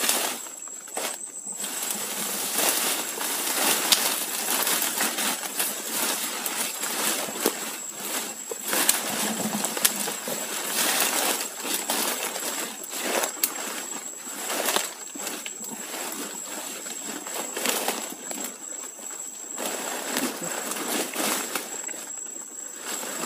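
Leaves, ferns and twigs rustling and crackling irregularly as people push on foot through dense forest undergrowth, with footsteps on the leafy ground.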